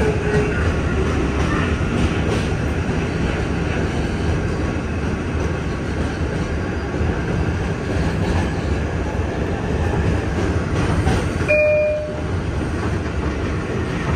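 R142 subway train running along the track, heard from inside the car: a steady rumble of wheels on the rails, with a short high tone about twelve seconds in.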